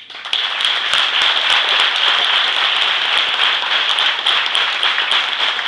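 An audience applauding in a hall: the clapping swells in over the first half-second and then holds loud and steady.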